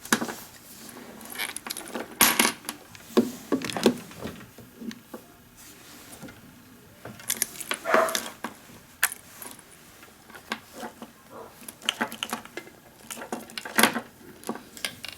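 Irregular metallic clicks and rattles of radio cables and connectors being handled and disconnected.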